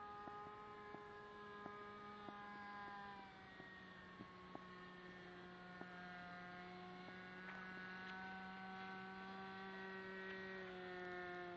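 Radio-controlled model airplane's motor droning faintly as the plane flies overhead, one steady pitched tone that dips slightly about three seconds in and then drifts. A few faint ticks are heard.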